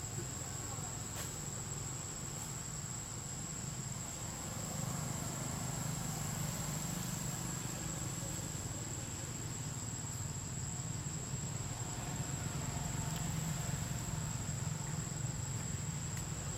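Insects keeping up one steady, high-pitched drone, over a low steady hum.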